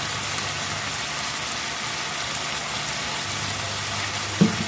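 Chicken curry frying in a kadai, a steady sizzling hiss over a low steady hum, with a short knock near the end.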